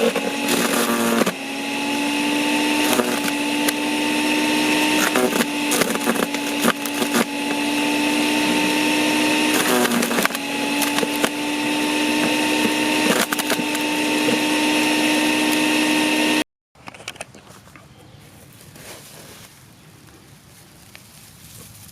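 Snow Joe CJ601E 14-amp electric chipper/shredder running with a steady motor hum while branches are fed through it, its blades cracking and snapping the wood many times. The sound cuts off abruptly about three quarters of the way in, leaving quiet outdoor background.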